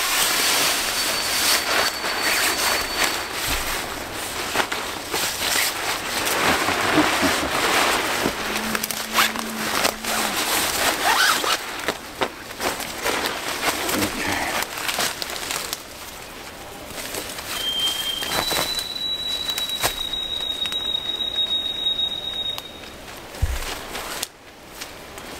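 Nylon hammock fabric and its cover rustling and crinkling as they are handled and pulled into place, with many small crackles; the handling gets quieter in the second half.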